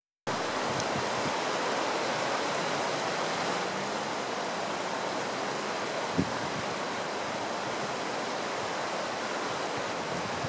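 Floodwater rushing steadily, a constant even noise of fast-flowing water. A brief low thump about six seconds in.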